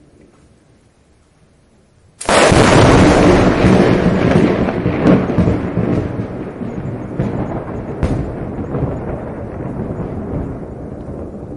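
Lightning strike with thunder: a sudden, loud thunderclap about two seconds in, then a long rolling rumble that slowly fades, with a few sharp cracks breaking through it.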